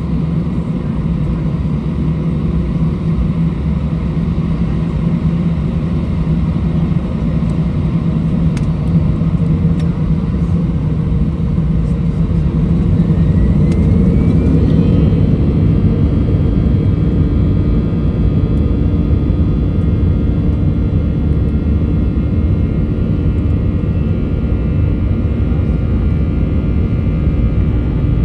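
Airbus A320 jet engines heard inside the cabin over the wing, running with a steady low rumble. About halfway through a whine rises in pitch and holds higher as the engines spool up.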